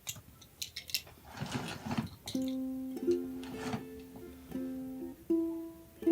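Background music: a plucked string instrument starts picking a slow melody about two seconds in, after a few soft clicks and rustles.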